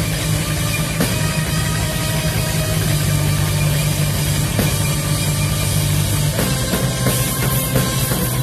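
Post-black metal band playing live at full volume: a dense wall of distorted guitars and bass over drums, with the low chord changing about six seconds in.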